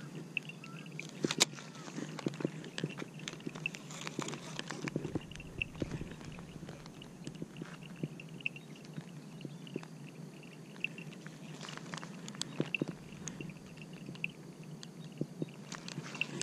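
Handling noise of a fishing rod and reel close to the camera: scattered light clicks, taps and rubs, a few sharper ticks, over a steady low hum. A faint high chirp repeats off and on about every half second.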